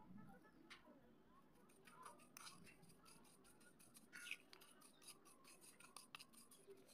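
Fingers crumbling dry clay powder and slate-pencil pieces and working them into wet clay paste in a terracotta bowl: faint, dense crackling and scratching made up of many small irregular clicks.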